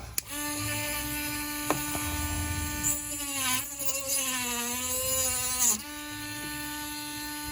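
Small handheld rotary tool whining steadily as it cuts into a charger's plastic case. From about three seconds in, its pitch drops and wavers under load, then recovers near six seconds.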